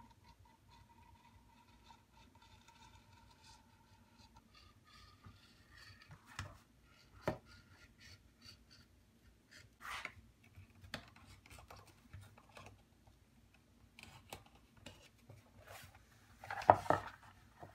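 Leather being cut out by hand: quiet, scattered cutting and handling sounds, with a louder burst near the end.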